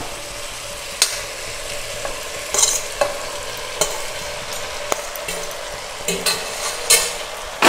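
Vegetables in Schezwan sauce frying with a steady sizzle in a pot while boiled noodles are tipped in from a steel plate. A few short knocks and scrapes of the steel plate and wooden spatula against the pot.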